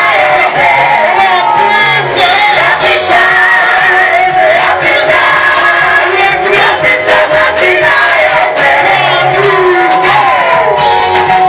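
Praise-and-worship song: voices singing a melody over steady instrumental accompaniment, loud and without a break.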